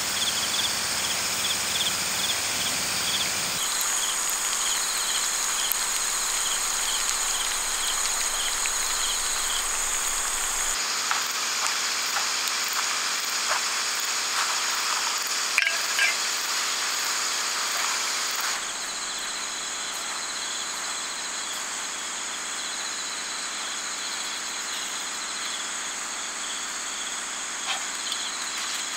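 Night insects and crickets chirping steadily, with a repeating chirp standing out through the first third. A couple of sharp clicks about halfway through are the loudest moments.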